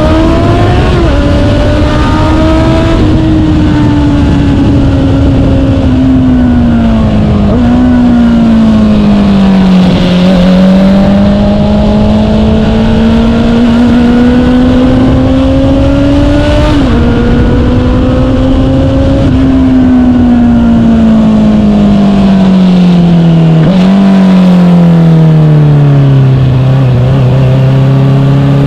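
Honda CBR650R inline-four engine through an Akrapovic full-system exhaust with the inner silencer removed, under way: the note climbs, drops sharply at upshifts, falls away on closing the throttle with jumps up at downshifts, and settles to a steady low note near the end.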